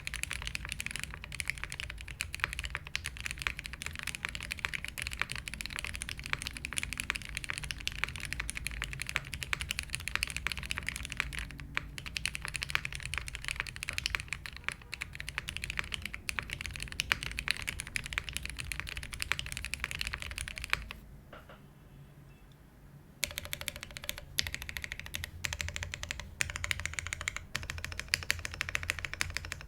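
Continuous typing on a custom mechanical keyboard with lubed vintage Cherry MX Black linear switches on an aluminium plate, undampened, with GMK keycaps: a dense run of keystroke clicks. The typing stops for about two seconds a little past the two-thirds mark, then resumes.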